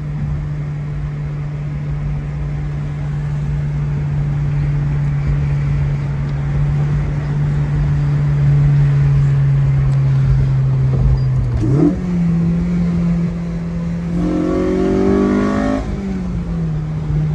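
8th-gen Honda Civic Si's four-cylinder engine running under way, heard from inside the cabin. Its steady drone sags slowly in pitch, steps up about twelve seconds in, and briefly climbs near the end.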